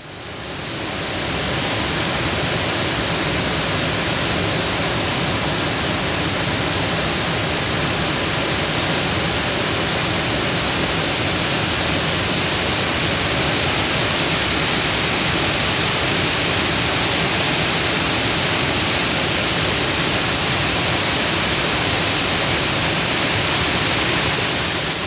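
Water pouring over a weir: a steady, even rush of falling water, fairly loud and hissy, fading in over the first second or two.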